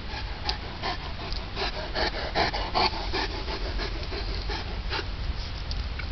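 St. Bernard panting close to the microphone: a quick run of short breaths that is busiest in the middle and thins out about five seconds in.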